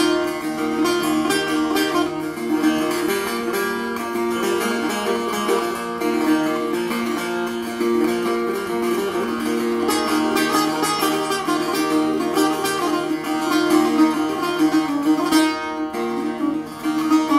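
Solo setar, the Persian long-necked lute, plucked in a continuous improvisation in the Bayat-e Tork mode on F. Its strings are tuned C–F–C–C, a whole tone below concert pitch, and a run of quick plucked notes sounds over steadily ringing lower strings.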